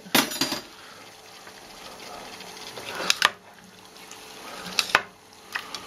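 A spoon knocking and scraping against a saucepan of simmering tomato and vegetable sauce: a few sharp knocks just after the start, about three seconds in and near five seconds, over the soft steady hiss of the simmering pan.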